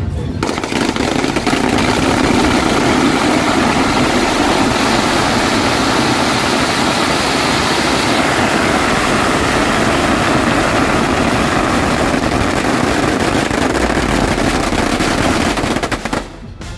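Long strings of red firecrackers going off in one continuous, dense, loud crackle of rapid bangs, starting just after the opening and cutting off about a second before the end.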